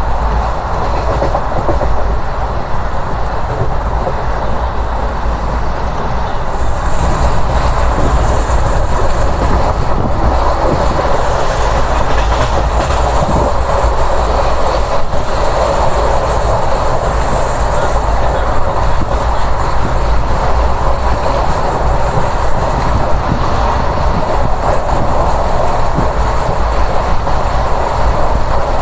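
Running noise of an ICF passenger coach at speed, heard at an open window: a steady rumble and rush of the wheels on the rails with faint clickety-clack, and wind buffeting the microphone. A higher hiss joins about six seconds in and the sound grows a little louder.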